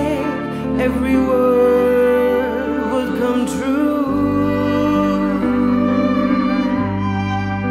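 Live band playing a slow, tender song: a melody line of long held notes over a sustained bass, which moves to a new note about four seconds in.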